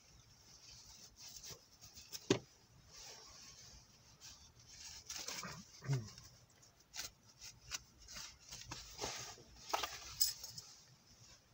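Rustling and scattered light clicks of gloves being pulled on and small items handled at close range, with a brief low sliding sound about six seconds in.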